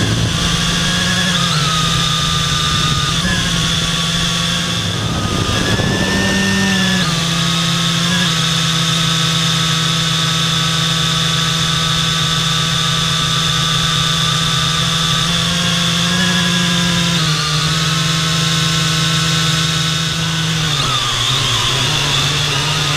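A multirotor drone's electric motors and propellers whine loudly, heard close up from the camera mounted on the drone. It is a steady, pitched buzz whose pitch dips and rises several times as the motors change speed, most clearly around six seconds in and again near the end.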